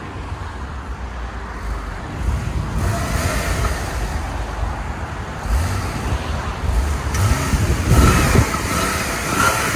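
Porsche 911 Carrera flat-six running near idle through its factory muffler and resonator and new quad tips: a low, steady exhaust rumble, not crazy loud and clean, that swells briefly about eight seconds in.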